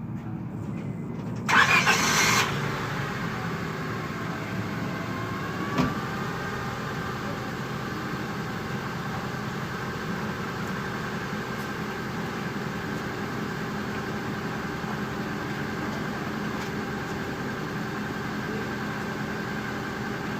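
A car engine starting with a short loud burst about a second and a half in, then idling steadily.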